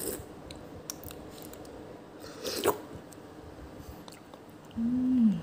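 Someone eating a spoonful of coconut-milk and jackfruit dessert: faint spoon clicks, a short slurp about halfway through, and a hummed "mmm" of approval near the end, the loudest sound.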